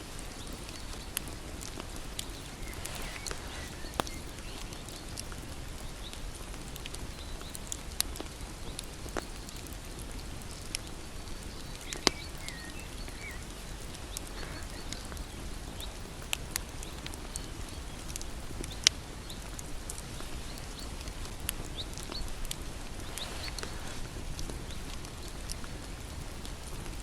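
Bonfire crackling: a steady low rush of burning wood with irregular sharp pops and snaps, a few of them much louder than the rest.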